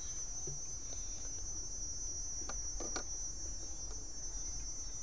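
Steady, continuous high-pitched insect trilling, with two faint clicks about two and a half to three seconds in.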